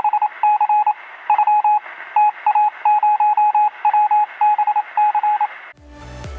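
Radio sound effect: rapid beeping in uneven groups of short and longer tones over a hiss, heard through a narrow, telephone-like band. It cuts off near the end and electronic dance music with a steady beat starts.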